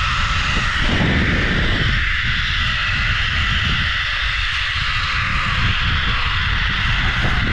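Zipline trolley running along a steel cable: a steady whirring hiss with a low rumble underneath.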